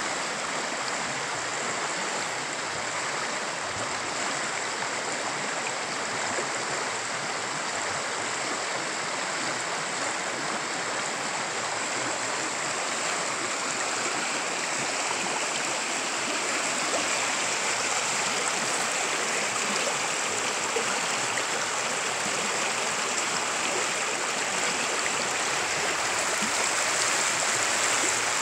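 Fast-flowing river rushing and churning over rocks, a steady unbroken roar of water that grows a little louder in the last seconds.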